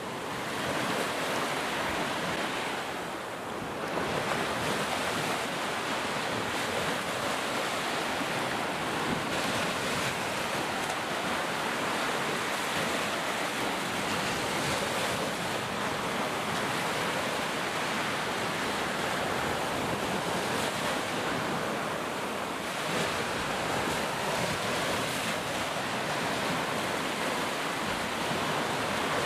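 Steady rushing noise like surf, swelling and easing slowly.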